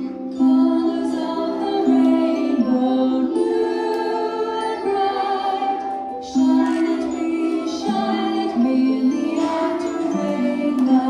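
Young children singing a song together, with musical accompaniment.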